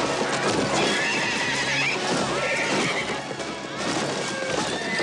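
Film soundtrack of a group of horses galloping, with hoofbeats and several whinnies, over film music.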